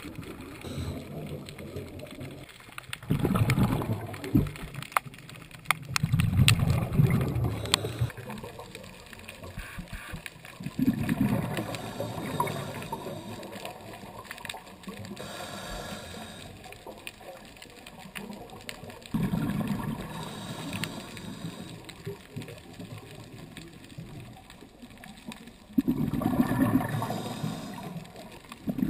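Underwater sound through a camera housing: a scuba diver's exhaled bubbles rumbling past in bursts every few seconds, with faint clicks and crackling between the breaths.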